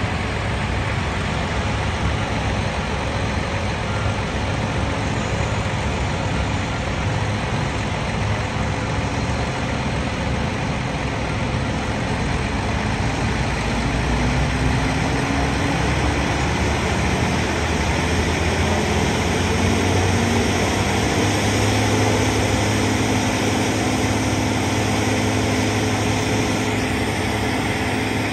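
Heavy engine running steadily under a broad noisy wash. About halfway through, its drone rises in pitch and then holds level.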